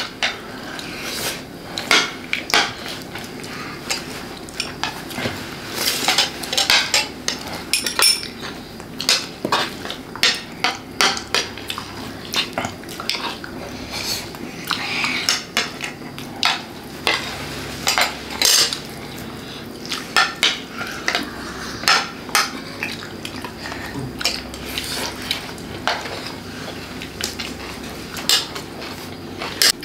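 Spoons and forks clinking and scraping against plates as several people eat, sharp irregular clicks a few times a second.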